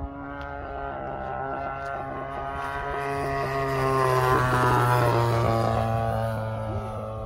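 Radio-controlled aerobatic plane's engine and propeller droning in a low fly-by, growing louder as it passes close about four to five seconds in, then fading away.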